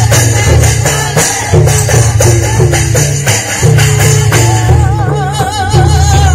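Folk drumming on clay mandar barrel drums, a steady pattern of deep strokes with jingling percussion over it. About four seconds in, a long, wavering high held note comes in over the drums.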